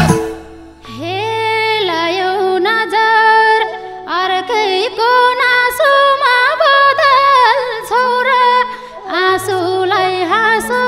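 A woman singing a solo verse of a Nepali dohori folk song in long, bending phrases, over soft held keyboard notes without drums.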